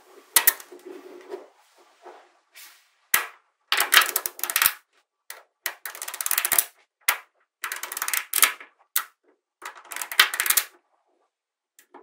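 Small neodymium magnetic balls clicking and snapping together as rows of them are pressed into a flat panel, in short rattling bursts of clicks with brief silent gaps between them.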